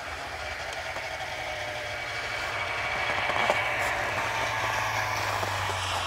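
Snowmobile engine running steadily under way, heard from on board, getting a little louder about halfway through.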